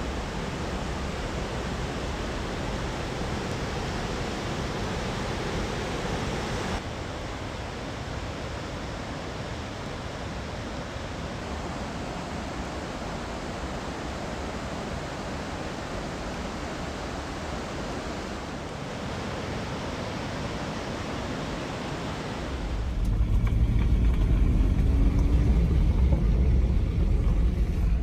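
Mountain creek rushing over boulders: a steady, even rush of water. About 23 seconds in it gives way to the louder low rumble of a car driving on a road, heard from inside the car.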